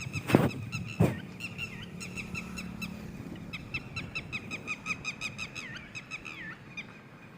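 Red-wattled lapwing chick peeping: short high calls repeated quickly, about four to five a second at their busiest, a few sliding downward near the end. Two loud thumps about half a second and one second in.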